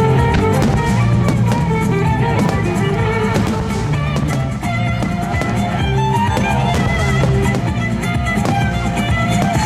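Music led by violin, with drums underneath, playing loudly and steadily.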